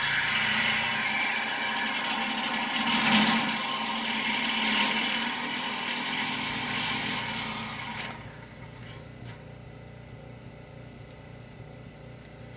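Handheld power saw running as it cuts into the mobile home's steel frame, then stopping abruptly about eight seconds in. The cut does not go through, which is taken for a blade too short for the job.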